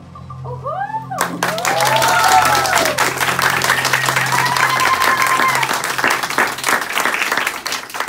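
Small audience clapping and cheering with a few rising-and-falling whoops, the clapping starting about a second in. The low notes of the music carry on underneath and stop about two-thirds of the way through.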